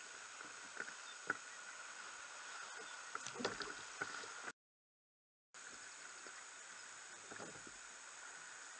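Faint steady hiss with a constant high tone, broken by a few light knocks from handling on a sit-on-top kayak. The sound drops out completely for about a second midway.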